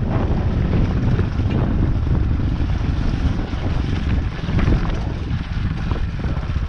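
Off-road vehicle engine running while riding, with heavy wind buffeting on the microphone.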